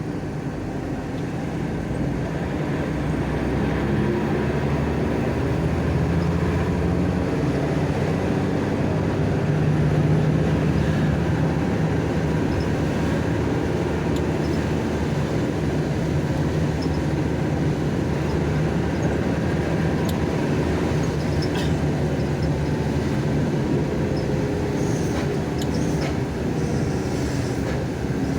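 Steady drone of an intercity bus's engine and road noise heard from inside the cabin, a low hum holding an even pitch, with a few faint ticks near the end.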